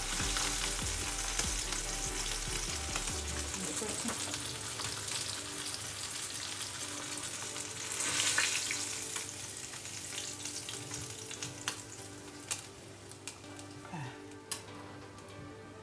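Whole sea bream sizzling as they shallow-fry in hot oil in a pan. The sizzle swells about eight seconds in, as the fish are moved, then dies down, with a few sharp clicks near the end.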